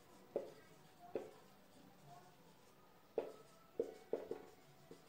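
Marker pen writing on a whiteboard: a handful of short, sharp taps and strokes as the letters go down, with quiet stretches between them.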